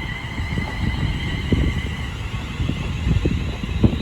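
A pair of class 350 Desiro electric multiple units arriving at the platform: a steady electric whine from the traction equipment over a low, uneven rumble.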